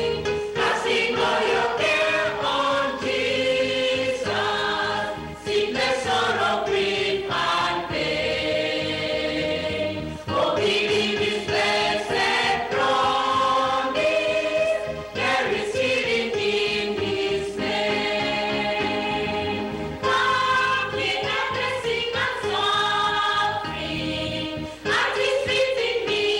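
Mixed choir of women and men singing a slow hymn, with held notes and short breaths between phrases; the words include "Oh, believe His blessed promise" and "At His feet in meekness kneel".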